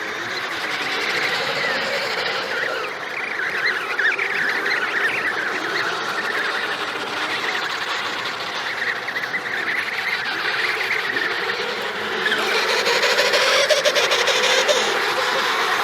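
Emperor penguin colony calling: many overlapping high, wavering calls and chirps in a dense chorus, growing a little louder in the last few seconds.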